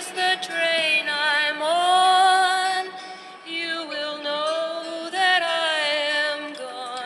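A song with a woman's sung vocal line, held notes with vibrato over a light accompaniment.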